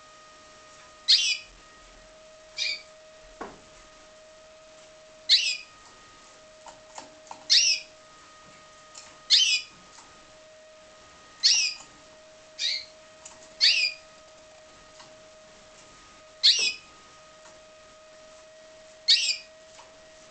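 Timbrado canary giving short, high-pitched bursts of song, about one every second or two, over a faint steady hum.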